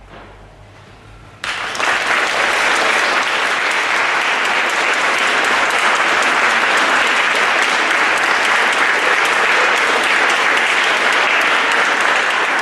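Audience applauding at the end of a sung piece with piano, starting suddenly about a second and a half in and going on steadily.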